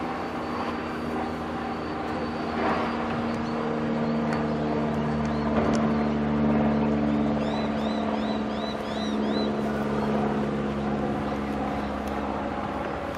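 V/Line diesel-electric locomotive approaching at the head of a passenger train, its engine running with a steady low drone that grows louder about five seconds in. A quick run of high chirps sounds about two thirds of the way through.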